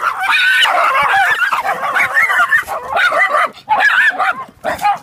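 A pack of small dogs barking and yapping at a person, loud, rapid and overlapping almost without a break: aggressive harassing barking.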